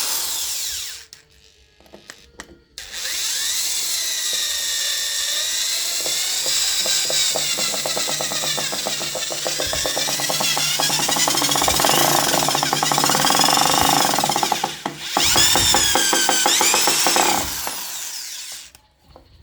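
Motor whine of an I Bell SD 12-75 electric screwdriver-drill driving a screw. It runs briefly and stops about a second in, then starts again and runs for about twelve seconds, its pitch rising and falling as the speed and load change. It breaks off briefly and runs once more before winding down near the end.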